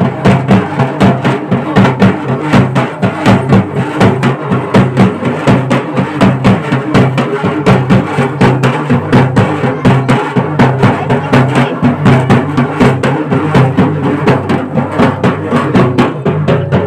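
Procession drumming: loud, fast, even drum strokes, about four or five a second, kept up without a break.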